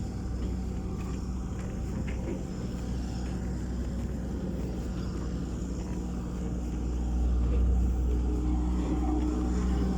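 A large engine running steadily with a low drone, a little louder from about seven seconds in; likely site machinery or a vehicle on a construction site.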